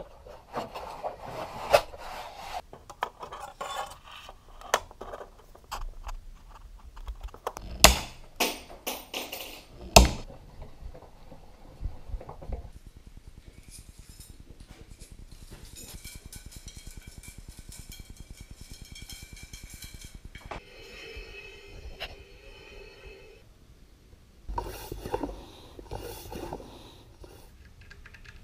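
Steel bicycle spokes clinking, rattling and scraping as they are handled and threaded through a hub flange, with many sharp metallic clicks, the two loudest about eight and ten seconds in. A steadier buzzing stretch runs through the middle.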